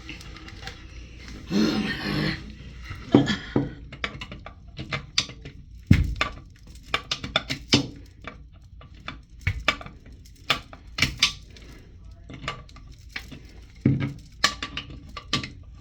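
Irregular clicks, knocks and clinks of plastic toilet-tank fittings and nuts being handled and tightened against the porcelain tank.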